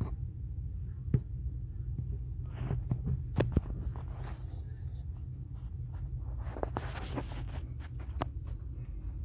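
Steady low hum with scattered scraping and rustling clicks, in two busier clusters about three seconds and seven seconds in.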